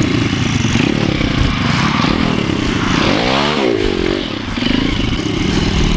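MRF 140 pit bike's single-cylinder four-stroke engine running under throttle, heard from the rider's helmet camera. About halfway through the revs drop and pick up again.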